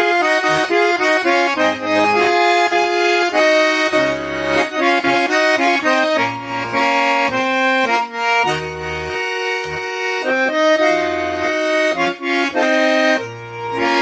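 Tula garmon (Russian button accordion) playing an instrumental passage of a folk-song melody. Held melody notes sound over short, separate bass notes and chords.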